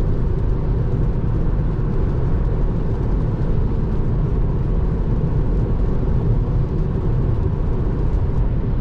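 Steady road and tyre noise of a Tesla Model 3 running at highway speed on a wet road, heard inside the cabin: an even low rumble with a light hiss of spray and rain, the rain letting up.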